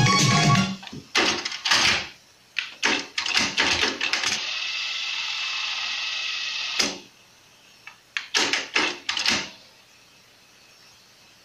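Sony TC-WR545 dual cassette deck's buttons and tape transport mechanisms clicking and clunking as high-speed dubbing from deck A to deck B is set going. A steady high whir runs for a couple of seconds in the middle, and a second run of clicks follows.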